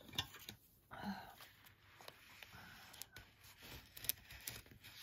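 Faint scattered clicks and light scratches of small hand work on paper: a craft pick being worked on cardstock, with a brief murmur about a second in.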